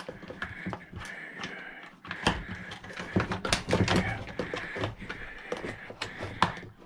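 Irregular clicks and knocks of tools and hard plastic parts being handled and pried at while a jump starter pack is taken apart.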